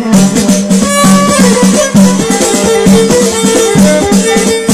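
Amplified Moroccan Amazigh chaabi folk music: hand drums and a rattling percussion keep a steady, repeating beat under a pitched melody.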